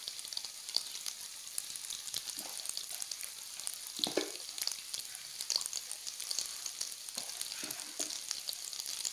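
Oil sizzling and crackling in a pan as boiled eggs with a spice stuffing fry on a low flame, with scattered small pops and one louder pop about four seconds in.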